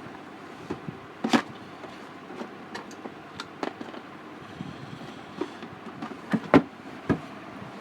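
Scattered small clicks and taps, with a few sharper knocks near the end, over a steady low hiss: a screwdriver and screws working on a MacBook's bottom case as the screws are put back in.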